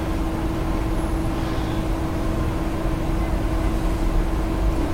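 Steady background hum and low rumble with a constant low tone, no distinct events.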